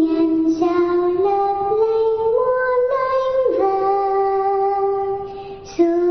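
A female voice sings a slow lullaby in Vietnamese with no accompaniment. Held notes climb step by step to one long note that fades out about five seconds in, and the next phrase begins just before the end.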